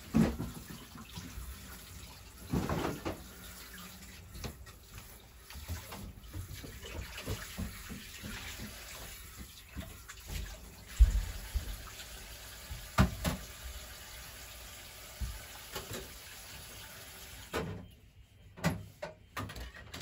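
Kitchen tap running into a sink while dishes are washed by hand, with scattered knocks and clinks of crockery, the loudest about halfway through. The water stops near the end.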